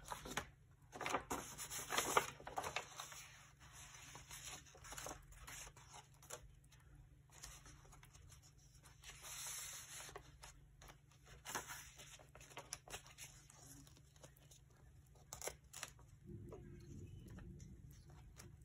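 Paper being handled and torn at a craft table: irregular rustling and ripping bursts, loudest in the first few seconds. A low steady hum comes in near the end.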